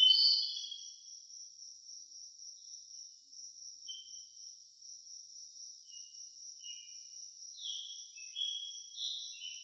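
Insects trilling steadily in a high, even band, with short bird chirps over it: one loud chirp right at the start, then scattered softer chirps and a small burst of them near the end.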